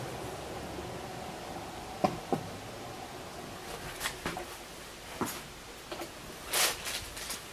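Quiet room tone with a few scattered light clicks and knocks, and a short rustle near the end.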